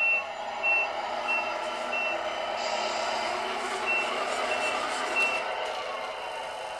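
Tractor-unit truck's reversing alarm beeping at one high pitch, short beeps about one and a half a second, over a steady engine sound. There are four beeps, a pause of nearly two seconds, then three more.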